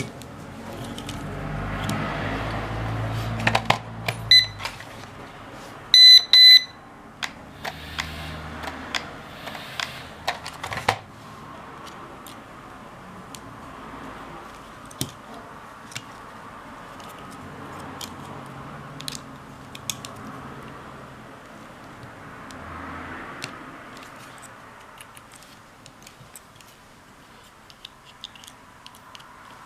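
Short high electronic beeps: one about four seconds in, then a quick run of several louder ones around six seconds in. Small clicks and taps of handling are scattered throughout, and a low hum runs for the first few seconds.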